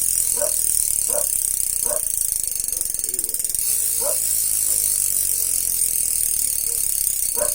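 Paps Pro 2 bicycle rear hub with 8 pawls freewheeling: its pawls click over the ratchet ring in a fast, steady buzz, with a few short louder sounds at uneven intervals. The hub sound is moderate rather than loud, which the owner calls tame.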